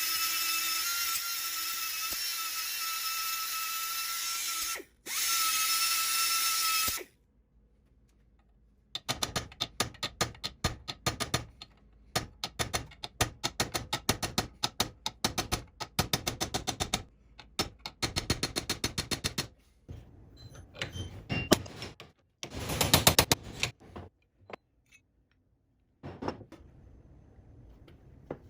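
An electric power tool runs with a steady whine for about seven seconds, cutting out briefly near five seconds. After a short pause comes a long run of rapid, sharp, repeated strokes that lasts to near the end.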